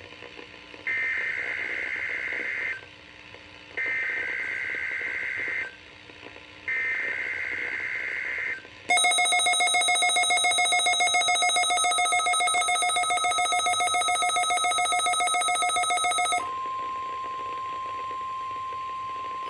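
NOAA Weather Radio weekly test signal on a Midland weather radio receiver: three bursts of about two seconds of warbling digital SAME header data, then a loud, rapidly pulsing alarm for about seven seconds, then a steady single tone. This is the test of the public warning system that activates the receiver.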